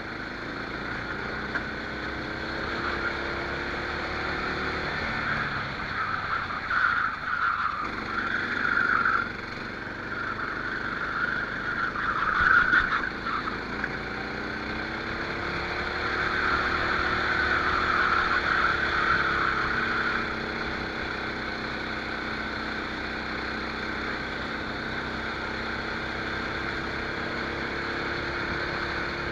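Rental kart's engine heard onboard, its pitch rising and falling as the throttle is opened and closed through the corners.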